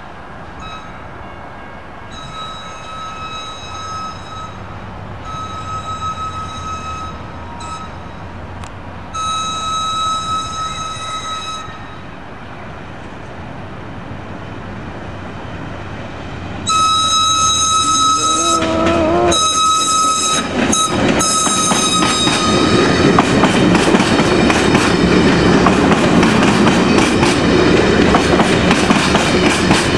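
Amtrak Silver Star passenger train sounding its horn for a grade crossing in the long, long, short, long pattern, followed by two more long blasts, louder as it nears. For the last third, the stainless-steel passenger cars rumble past with a steady clatter of wheels over the rail joints.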